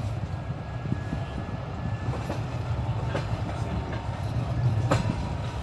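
Passenger train running on the rails, heard from inside the carriage: a steady low rumble of the wheels, with sharp clicks of the wheels over rail joints from about two seconds in.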